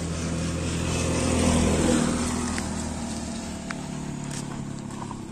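A minivan drives past close by, its engine and tyres growing louder to a peak about a second and a half in, the pitch dropping as it goes by, then fading away.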